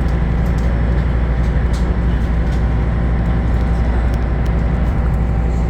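Sightseeing boat's engine running steadily, a constant low rumble with the hiss of the hull moving through the water.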